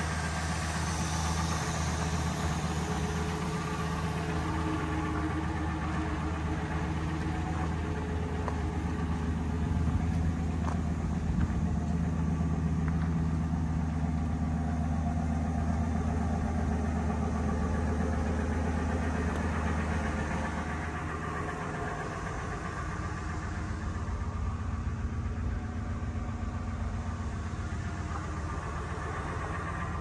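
A vehicle engine running steadily with a low, even hum; its tone shifts and it gets a little quieter about two-thirds of the way through.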